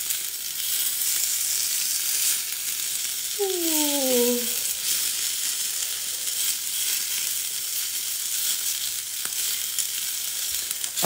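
Chicken meatballs sizzling in hot oil in a cast iron skillet, a steady frying hiss, as tongs turn them in the pan.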